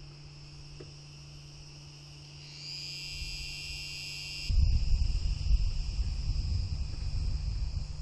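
A steady, unbroken high-pitched chorus of cicadas over a low hum; about halfway through, a louder, uneven low rumble joins in.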